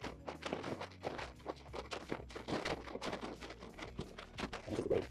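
Footsteps of a person walking up a trail: a quick, uneven run of steps, each a short scuff or crunch.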